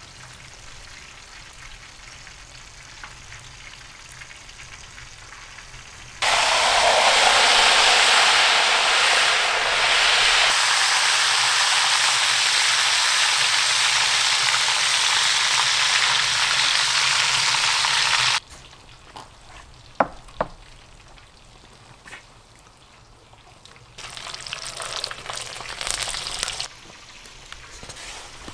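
Hot oil sizzling loudly in a large black wok as garlic, tomatoes and chili peppers fry in it. The sizzling starts abruptly about six seconds in and cuts off abruptly about twelve seconds later. A few sharp clicks follow.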